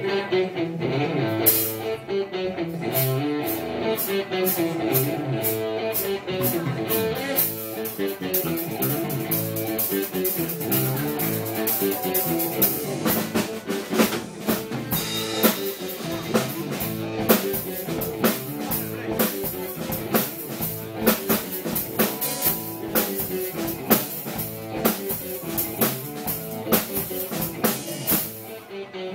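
Live band playing: electric guitar and keyboard over a steady, busy drum-kit beat.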